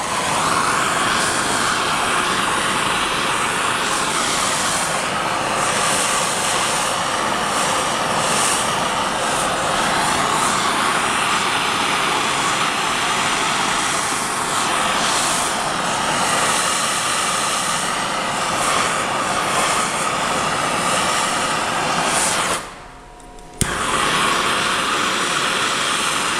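Handheld gas torch burning with a steady roaring hiss as it heats a Jacobs drill chuck to loosen it on its tapered arbor. Near the end the flame sound drops out for about a second, then comes back with a sharp click.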